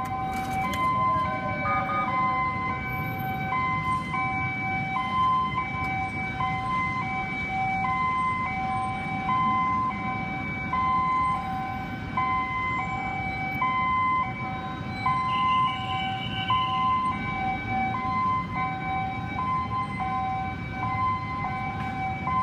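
Ambulance siren sounding a two-tone hi-lo call, switching between a low and a high note about once a second, over the rumble of street traffic. About fifteen seconds in, a higher steady tone joins for about a second and a half.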